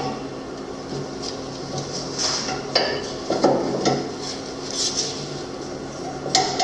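Metal parts and hand tools clinking and knocking as a mini dirt bike is worked on, a handful of short, sharp clicks spread over a few seconds above a steady low hum.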